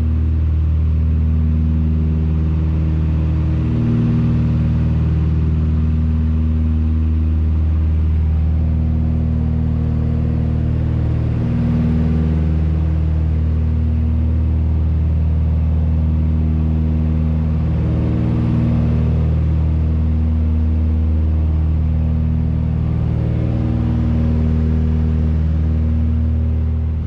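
Britten-Norman BN-2B-26 Islander's twin Lycoming six-cylinder piston engines and propellers droning steadily in cruise, heard from inside the cabin: a loud, even hum of several low tones that slowly swells and eases.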